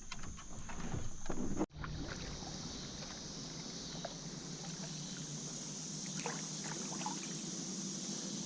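Quiet ambience around a drifting jon boat on a river: a steady high insect drone, with faint water sounds and light ticks and knocks.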